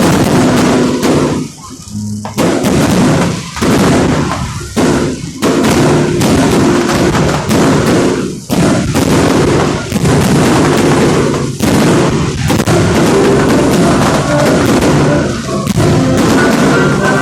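Fireworks going off in rapid, overlapping bangs, with loud music playing underneath.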